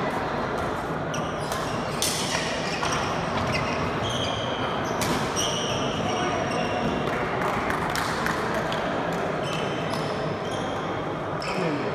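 Badminton rally: sharp cracks of racket strings hitting the shuttlecock at irregular intervals, with short high squeaks of court shoes on the wooden floor, over background chatter in a large hall.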